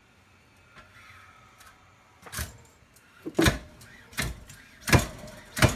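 Stainless steel French fry cutter with suction-cup feet being worked to push a potato through its cutting grid. After a couple of quiet seconds there is a run of loud, sharp knocks about every three-quarters of a second.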